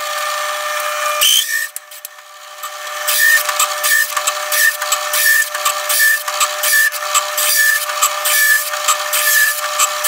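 Drill press running with a 2 3/4-inch hole saw cutting through a wooden board, its motor humming steadily. From about three seconds in, the cutting rasps in a regular rhythm, swelling roughly every 0.7 seconds.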